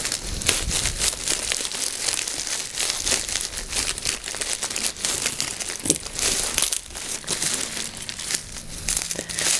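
Plastic packaging crinkling and rustling: a grey poly mailer bag and bubble wrap being handled and cut open with scissors, a continuous run of irregular small crackles.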